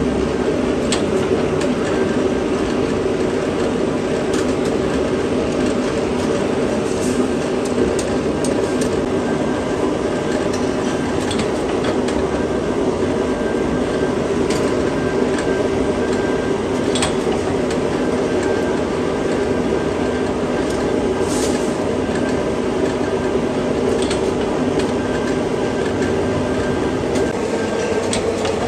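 Steady drone of forge-shop machinery running, the electric motor driving the furnace blower and power press, with scattered light metallic clinks of tongs and steel rods.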